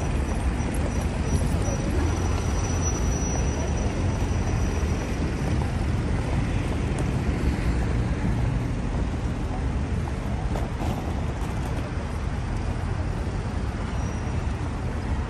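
Steady city street traffic noise: passing cars and buses make a continuous low rumble.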